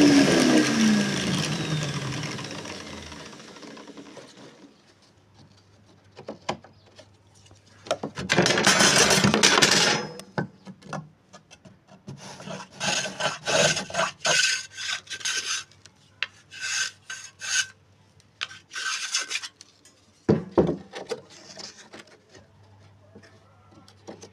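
A power tool winding down at the start, its pitch falling as it stops. Then a hand tool works wood with rubbing, rasping strokes in runs of short bursts, about two strokes a second.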